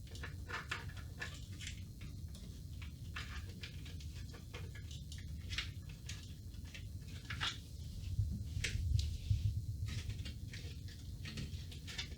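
Irregular light clicks and rustles of hands handling CPU power cables and parts in a computer case, trying to feed the cables through a routing hole, over a steady low hum.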